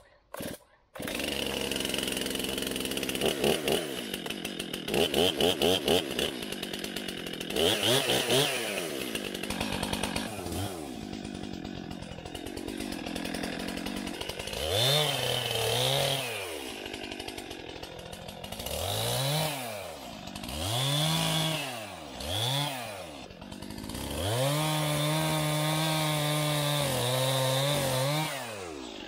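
Petrol chainsaw idling and being blipped up and down through repeated short revs, then held at high revs for several seconds while it cuts through hazel coppice stems.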